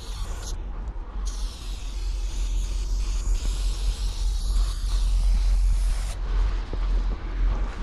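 Aerosol spray-paint can hissing as paint is laid on a brick wall in long strokes, with a short break about half a second in and stopping about six seconds in. A steady low rumble runs underneath.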